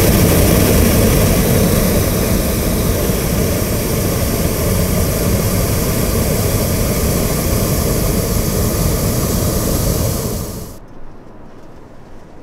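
Hot air balloon's propane burner firing in one long, loud, steady blast that cuts off abruptly about eleven seconds in.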